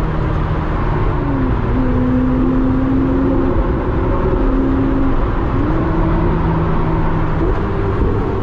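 Ferrari 488's twin-turbo V8, fitted with an aftermarket sports exhaust, running steadily while driving, with road noise underneath. Its pitch drops about a second in, then climbs in two steps in the second half.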